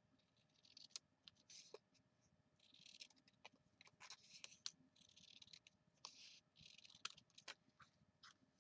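Faint rustling and sliding of paper being handled, broken by small sharp clicks and taps, in short bursts about half a second long.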